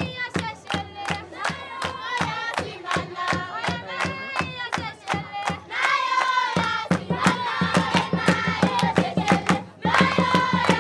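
A group of girls and women singing a traditional song together over steady, quick hand clapping. The singing gets louder about six seconds in, and the clapping keeps a constant beat throughout.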